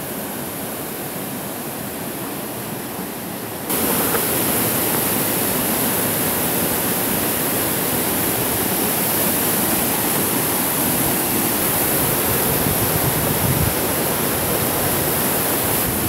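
Waterfall rushing down a narrow rock gorge, a steady roar of falling water that jumps abruptly louder about four seconds in and then holds.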